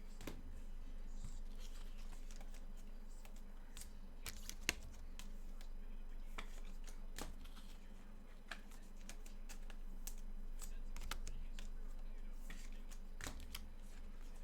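Trading cards and their packaging being handled: scattered light clicks, slides and rustles at irregular intervals over a steady low hum.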